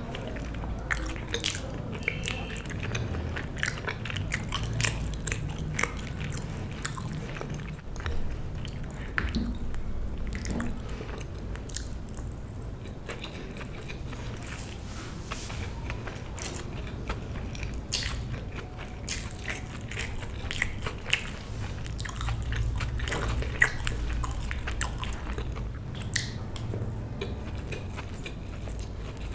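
Close-miked eating sounds: a person biting and chewing food, with crunching and many sharp mouth clicks throughout.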